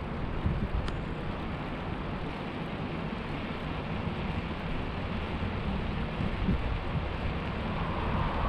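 Wind buffeting the action camera's microphone while riding along a road, a steady low rumble with road noise. There is a single click about a second in, and a rising hiss near the end.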